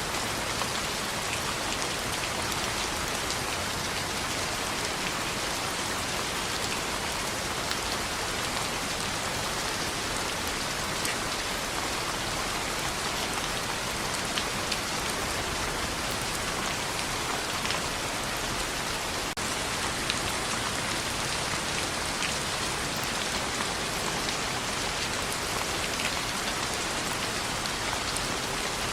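Steady rain on a window: an even, dense hiss with scattered sharp drop ticks.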